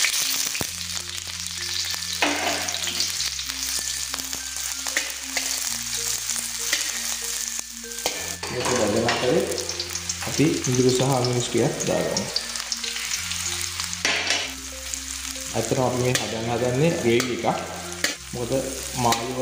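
Sliced onion, garlic and green chilli sizzling in hot oil in a steel wok while being stirred with a fork.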